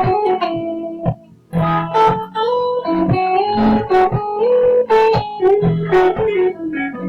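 Electric guitar playing a higher-pitched lead line of single sustained notes with slides, over a looped backing of repeating low percussive thumps tapped on the guitar body and bass notes.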